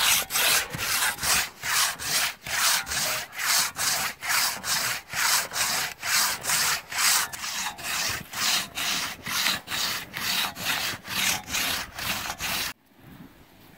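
Six-foot two-man crosscut saw cutting through a log, a rasping stroke about two to three times a second as the blade is pulled back and forth; the saw cuts on both the push and the pull. The sawing stops suddenly near the end.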